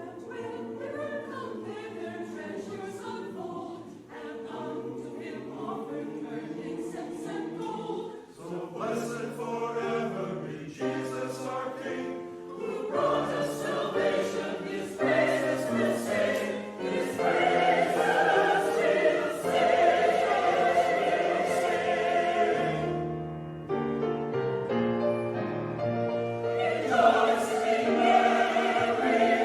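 Church choir singing a Christmas choral piece, held notes building in loudness, with instrumental accompaniment underneath.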